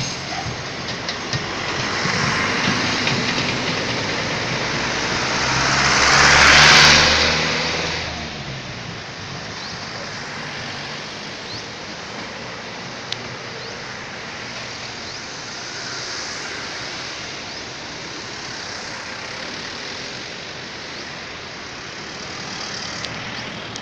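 Road traffic passing close by. A bus's engine hums as it passes, and the rush of it swells to a loud peak about seven seconds in, then dies away. After that comes steadier, quieter noise of cars driving past.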